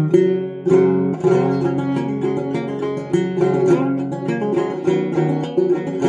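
Ceramic gourd-style banjo with a tacked skin head being played: a steady run of plucked notes, several a second.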